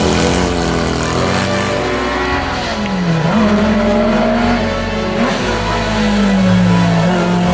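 Race car engine at full throttle, its pitch climbing through the gears with a sharp dip at a gear change about three seconds in, then falling off near the end as the driver lifts.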